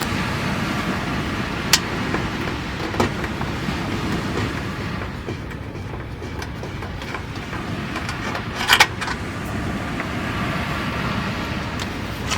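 Wood campfire burning with a steady rush and a few sharp pops, the loudest a quick cluster of cracks about nine seconds in.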